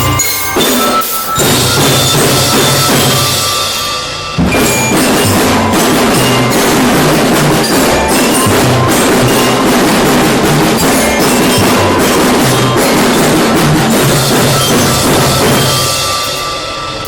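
A children's drum band playing: bass drums beat a repeating rhythm under snare drums and ringing bell-like melody notes. About four seconds in the band comes in fuller and louder, and it thins and drops in level near the end.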